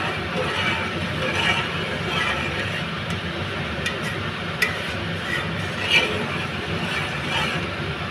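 A few light metal clinks of a steel ladle against an aluminium cooking pot, over a steady background hum.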